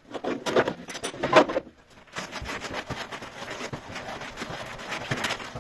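Hands working the drive belt off a heat-pump tumble dryer's drum and motor pulley: rubbing, scraping and clicking, loudest about half a second and again about a second and a half in.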